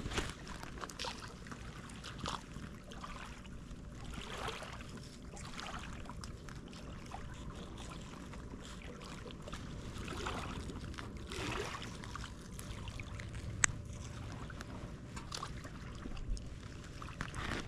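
Small waves lapping against a rocky lakeshore, with soft rustling now and then and a single sharp click about thirteen seconds in.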